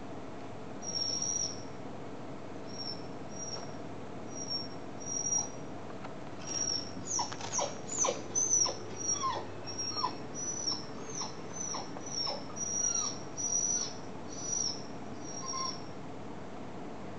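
A dog whining in short, high-pitched whines, spaced out at first, then coming thick and fast from about seven seconds in with several falling cries, and thinning out again near the end.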